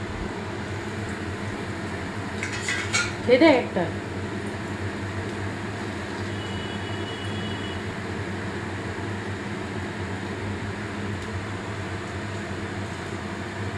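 Chicken masala balls deep-frying in hot oil in a kadai: a steady sizzle and bubbling. A brief voice cuts in about three seconds in.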